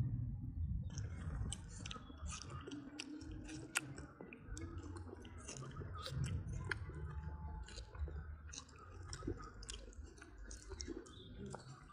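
Wet smacking and clicking mouth sounds of a macaque, most likely the baby suckling or the mother chewing, coming irregularly a few times a second over a low rumble.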